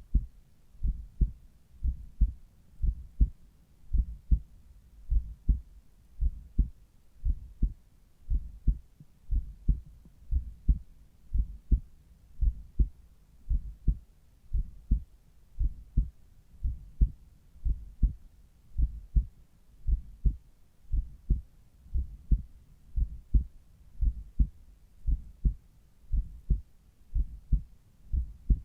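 Human heart sounds at the cardiac apex, heard through a Littmann Cardiology IV stethoscope: a steady, regular heartbeat, each beat a pair of low thuds (lub-dub), about one beat a second.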